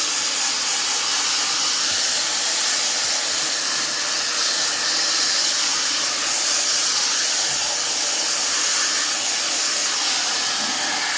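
Fentgo negative-ionic hair dryer with its diffuser attached, blowing steadily on its high setting: an even, loud rushing of air and motor, described as a little bit louder than the medium setting.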